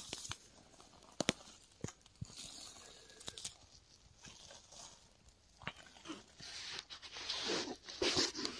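Slow footsteps on a dry forest floor of pine needles and twigs, with scattered sharp snaps and crunches, and camouflage clothing rustling against the microphone and brush. The rustling gets louder near the end.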